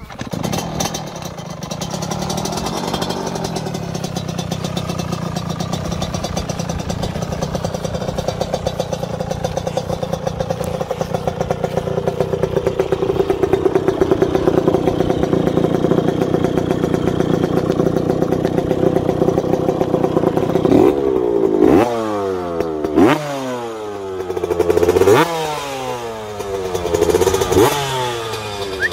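An engine running steadily for about twenty seconds, then revved up sharply and let fall back, over and over, in the last several seconds.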